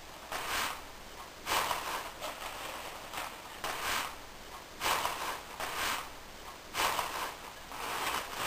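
Loose toilet paper rustling and crinkling in short bursts, about one a second, as a cat shifts and paws about underneath the sheets.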